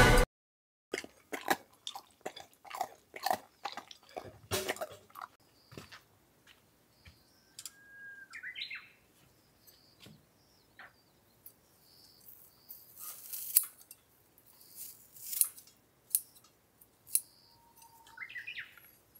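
A dog crunching dry kibble from a bowl, a quick run of small crunches over the first few seconds. Then birds chirping, with a rising chirp about eight seconds in and again near the end, and a few sharp snips of kitchen scissors.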